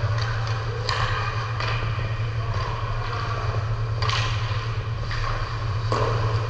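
Hockey skates carving and scraping across a rink in repeated hissing strokes, over a steady low hum.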